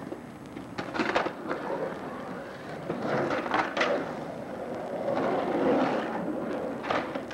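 Skateboard wheels rolling and grinding across the bare concrete of an empty swimming pool as the skater rides the floor and carves the wall. Sharp clacks of the board come about a second in, again around the middle, and near the end.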